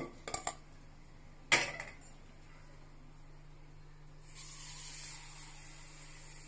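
Colocasia (taro) roots being handled in an aluminium pressure cooker: a few small clinks, then a single knock with a short ring about a second and a half in. About four seconds in, a steady hiss begins and carries on.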